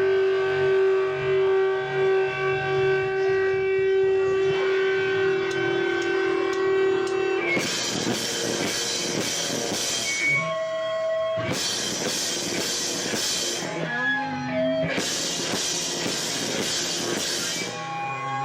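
Live rock band played loud through an overloaded microphone, so the sound is distorted. It opens with held guitar notes ringing over each other. About seven seconds in, the full band with drums crashes in, playing in hard blocks broken by short stops where single notes ring out.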